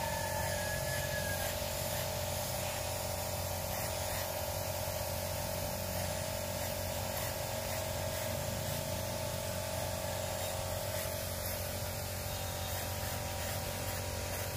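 Paint spray gun hissing steadily over a constant low hum.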